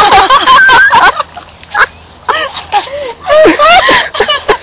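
A woman laughing hard in loud bursts of rising and falling pitch, with a short breathless lull about a second in.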